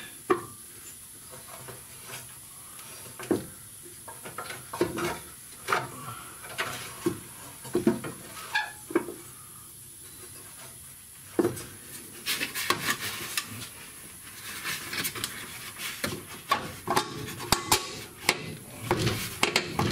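Irregular clicks, knocks and scraping as a pickup's fuel tank, its hoses and heat shield are pushed and adjusted into place by hand. The knocks and rattles come thicker and faster from about midway on.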